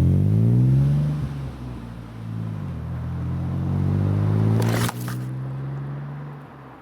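Alfa Romeo Brera's 3.2 V6 engine pulling under acceleration. It rises in pitch, drops at a gear change and climbs again, now running smoothly with its misfire repaired. A brief rushing noise comes about two-thirds of the way through, and then the engine eases off and gets quieter.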